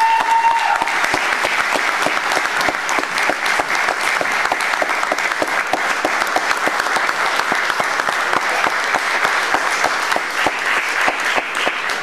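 Audience applauding steadily, dense clapping that begins to thin out near the end, with a short high held tone in the first second.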